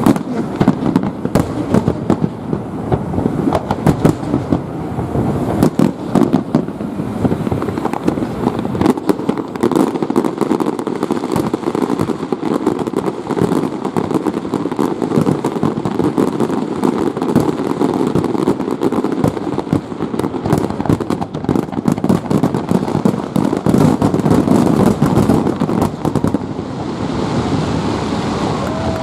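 Fireworks display: a dense barrage of overlapping bangs and crackling from bursting aerial shells, easing off about two seconds before the end.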